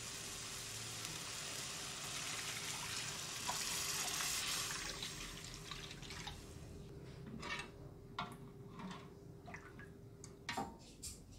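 Spice paste sizzling in a hot metal wok as water is poured in; the sizzle swells, then dies down once the water is in. A metal spatula then knocks and scrapes against the wok a few times as the liquid is stirred.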